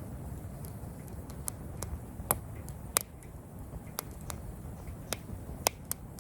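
Wood campfire crackling: sharp pops at irregular intervals, about eight of them, over a steady low rumble.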